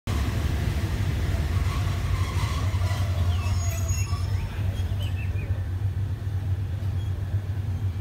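Passenger train hauled by a GEK-class diesel locomotive rolling slowly into a station, heard from aboard: a steady low rumble, with a few short high squeaks about halfway through.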